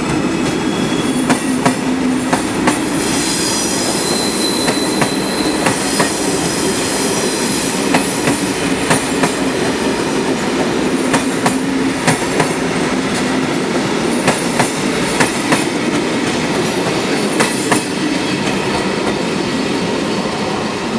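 Passenger coaches of a departing express train rolling past, their wheels clicking over rail joints and points. An intermittent squeal rides over the rumble, highest and strongest about three to six seconds in.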